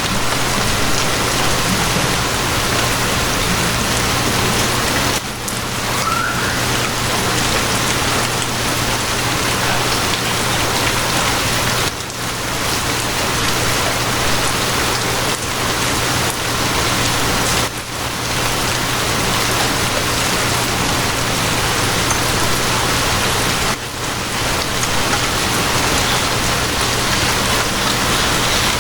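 Steady rain, an even hiss, over a low steady hum. The sound dips briefly about every six seconds.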